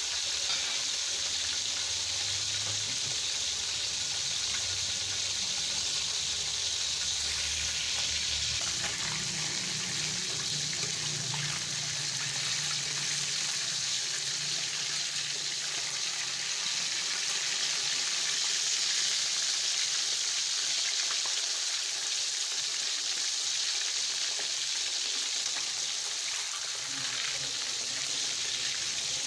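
Whole fish frying in hot oil in a metal wok: a steady sizzle, with the scrape of a spatula as the fish are turned.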